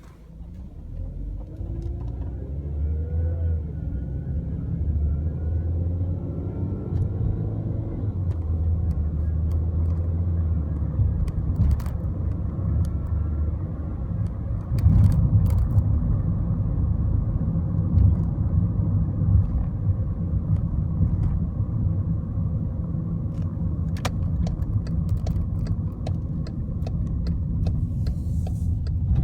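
2012 Volkswagen Jetta being driven: a steady rumble of engine and road noise, with a rising engine note about two to four seconds in and a few scattered clicks.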